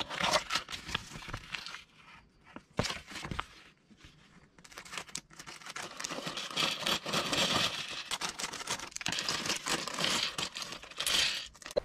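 A small cardboard box being opened, with scattered scrapes and clicks. From about four seconds in, clear plastic bags of building bricks crinkle steadily as they are handled.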